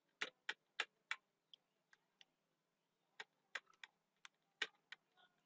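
About ten sharp computer mouse clicks at irregular spacing: four in quick succession, a pause of about two seconds, then several more, with near silence between them.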